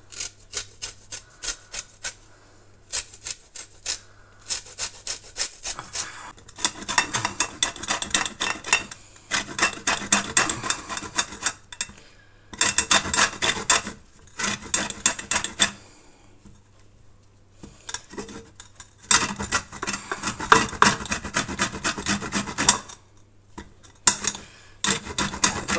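Peel of a large mandarin being grated on a flat metal hand grater: runs of quick rasping scrapes, with a couple of short pauses.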